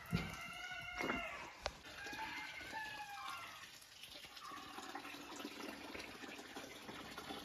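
A rooster crowing faintly, one call about a second long at the start, followed by fainter fowl calls over the next couple of seconds.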